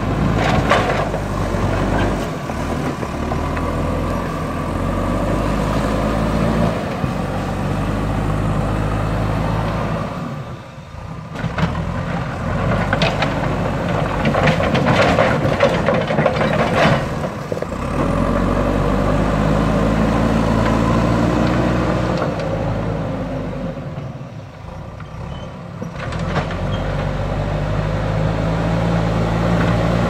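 JCB backhoe loader's diesel engine running under load, easing down twice and revving back up as the front bucket pushes soil and stones. A stretch of clattering and scraping from rocks and dirt against the bucket comes in the middle.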